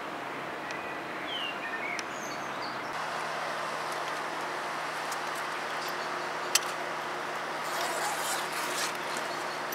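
Birds chirping a few times over a steady outdoor rumble, with a low engine hum starting about three seconds in and a single sharp click near the middle.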